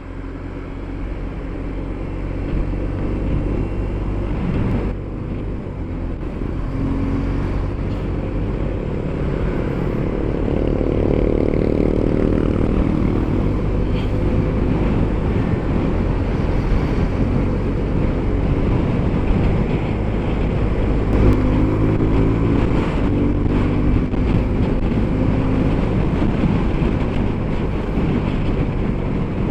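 Motorcycle engine and wind rushing past a closed helmet, heard from a mic inside the helmet, growing louder over the first ten seconds as the bike picks up speed and then holding steady at speed.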